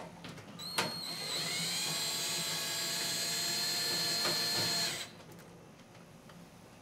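Power driver with a T20 tamper-proof Torx bit backing out a screw from the microwave's rear cabinet. The motor whine rises as it spins up, holds steady for about four seconds, then stops.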